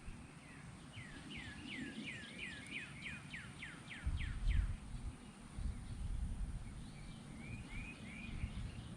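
A songbird singing a quick series of about a dozen clear, downslurred whistled notes, followed a little later by a short phrase of three more. A low rumble underneath is loudest about four seconds in.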